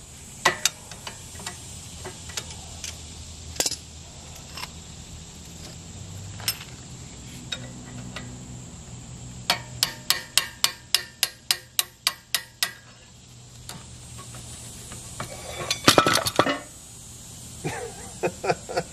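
Small hammer striking out the brake caliper retaining pin on a Dana 60 kingpin front axle: scattered light metallic taps, then a quick run of about a dozen ringing taps at about four a second, and a cluster of harder, louder strikes near the end.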